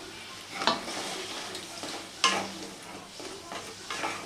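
Wooden spatula stirring fried nikuti sweets through bubbling sugar syrup in a kadai, with a few scrapes against the pan, the loudest a little after two seconds, over the syrup's sizzle.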